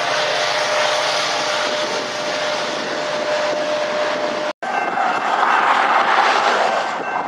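Diesel locomotive at the rear of a BNSF coal train passing close and moving off: its engine runs with a steady whine over wheel and rail noise. After a sudden break about four and a half seconds in, a steady rushing noise with faint thin high tones follows.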